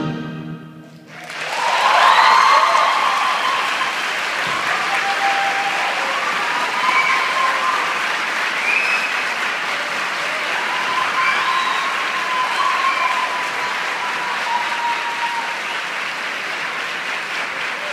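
Theatre audience applauding, with scattered shouted cheers over the clapping. The applause swells about a second in, just after the last of the orchestral music dies away, peaks shortly after and then holds steady.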